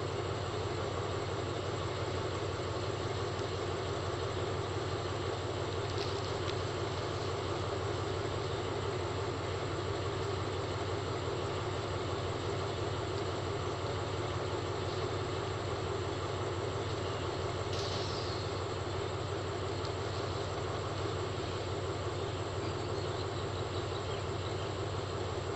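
Steady railway-station ambience at night: a low, even mechanical hum under a constant hiss, with two brief faint ticks, about six and eighteen seconds in.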